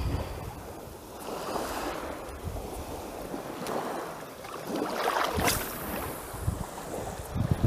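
Small waves lapping at the shoreline, with light wind buffeting the microphone and a brief swish about five and a half seconds in.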